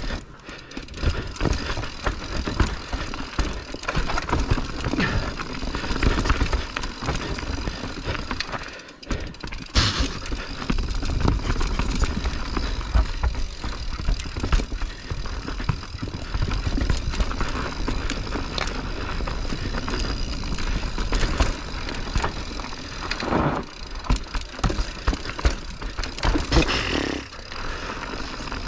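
Mountain bike riding down a rough, technical singletrack, heard from the rider's camera: tyres on dirt and rock, the chain and frame rattling with frequent knocks, over a low rumble. There is a brief lull about nine seconds in, followed by a sharp knock.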